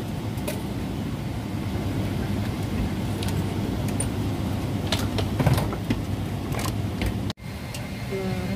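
Steady low hum of an airliner cabin at the gate, with scattered clicks, knocks and rattles from passengers opening overhead bins and handling bags. The sound cuts out for an instant a little past seven seconds.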